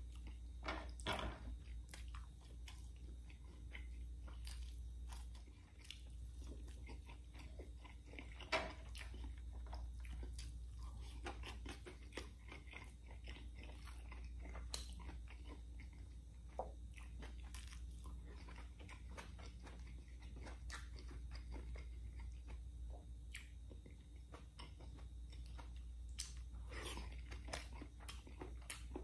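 Close-miked chewing and biting: a person eating pork adobo and rice by hand, with many short wet clicks and smacks of the mouth over a low steady hum.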